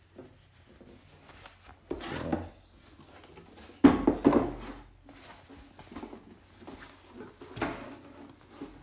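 Denim jeans being handled and turned over by hand: irregular rustling and rubbing of stiff fabric, with a sudden loud knock about four seconds in.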